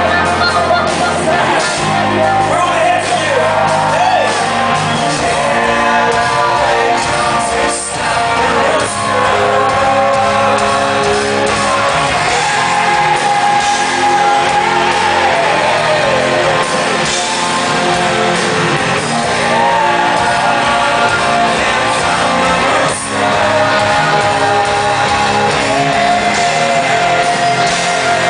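Live rock band playing loud, heard from the audience in a large amphitheater: two electric guitars and drums, with singing over them.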